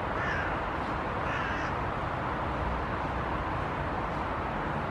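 A crow cawing twice, about a second apart, in the first two seconds, over a steady low background rumble.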